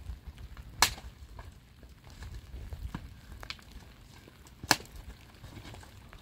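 Two sharp cracks nearly four seconds apart, with fainter ticks and a low rumble between them.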